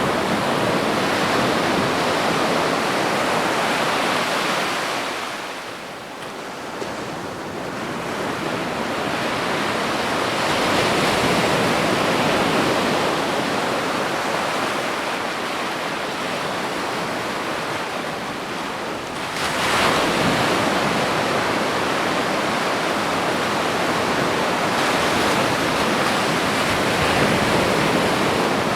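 Ocean waves breaking and washing on a beach: a steady surf roar that eases about a quarter of the way in, builds back, and swells again with a fresh wave a little past the middle.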